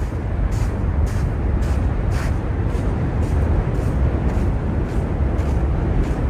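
Footsteps walking through snow, about two steps a second, over a steady low rumble.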